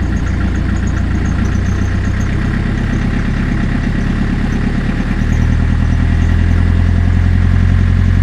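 Beta Marine narrowboat diesel engine running at about 800 rpm tick-over, then put into reverse, the revs rising; about five seconds in the engine note gets louder and heavier under the load.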